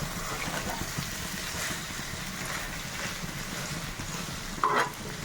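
Chicken fry sizzling steadily in the pan, a continuous hiss over a low steady hum. A brief, louder higher-pitched sound about four and a half seconds in.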